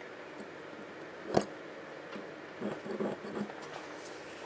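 Small metal tools handled on a blued steel bar during marking out: one sharp click about a second and a half in, then a few faint light knocks and scrapes as the engineer's square and scriber are moved.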